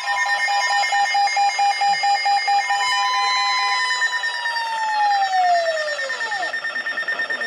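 Electronic emergency-alert tones: a pulsing tone with steady higher tones over it. About four seconds in, one tone slides steadily downward, like a siren winding down.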